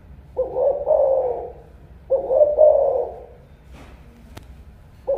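Spotted dove cooing: two phrases of about a second each, roughly a second and a half apart. A faint click comes near the end.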